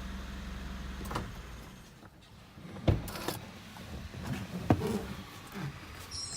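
A steady low hum in the pickup's cabin cuts off about a second in, followed by the clicks and knocks of the door being opened and someone climbing out of the truck, with two sharp knocks about three and nearly five seconds in.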